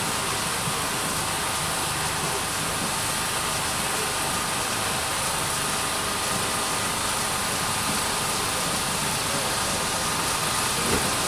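British Railways Standard class 9F steam locomotive standing with steam up, giving a steady hiss.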